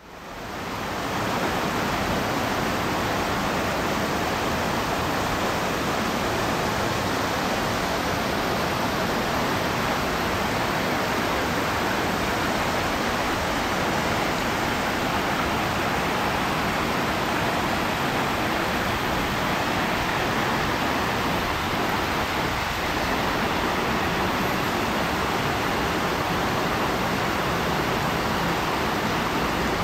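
Mountain stream running over rocks: a steady rush of water that fades in over the first second or so.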